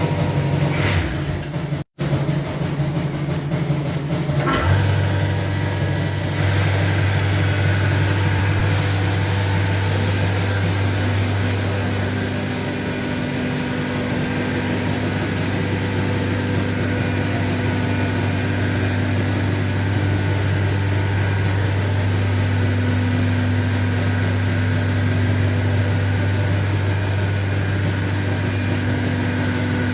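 Holz-Her Cosmec Conquest 250 CNC router running under power: a steady low machine hum sets in about five seconds in and holds, after a brief dropout about two seconds in.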